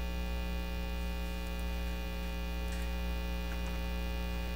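Steady electrical mains hum, with many steady tones stacked up the range, and a few faint keyboard key clicks about halfway through.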